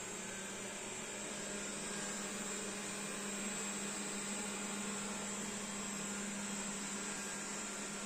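Xiaomi Dreame D9 robot vacuum cleaner running, its suction fan making a steady high whine over a low hum and a rushing hiss.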